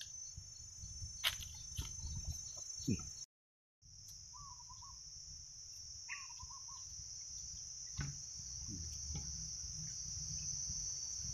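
Insects droning in a steady high-pitched buzz that drops out briefly about three seconds in, then comes back stronger. Two short chirping calls are heard in the middle, over a low rumble.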